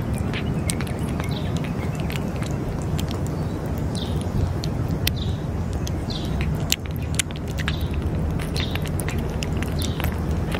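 A cat chewing wet cat food from a metal dish, a steady run of short moist clicks from its jaws and tongue. Birds chirp a few times behind it.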